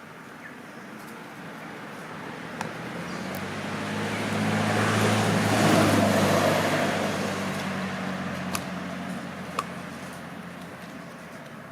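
A motor vehicle drives past. Its engine and tyre noise grow louder to a peak about six seconds in, then fade away.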